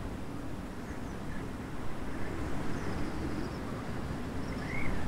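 Breeze buffeting the microphone in an uneven low rumble, with a few faint bird calls near the end.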